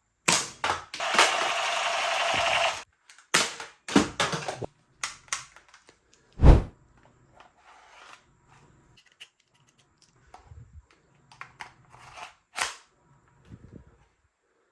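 Sharp plastic clicks and clacks of a spring-powered Glock Q1 toy airsoft pistol being handled and cocked, with a noisy rasp lasting about two seconds near the start. The loudest sound is a single heavy thump about six and a half seconds in.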